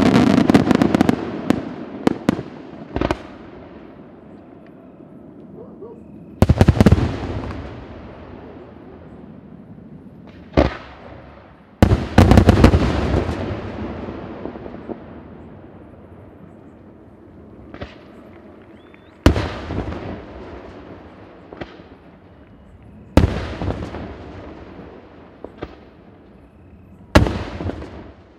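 Aerial fireworks shells bursting. A loud barrage dies away in the first couple of seconds, then single loud bangs follow every few seconds, each with a long rumbling tail that slowly fades.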